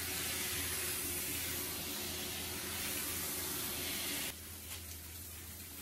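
Shower sprayer running at high pressure, rinsing a golden retriever's wet coat with a steady hiss of water; the spray cuts off suddenly about four seconds in.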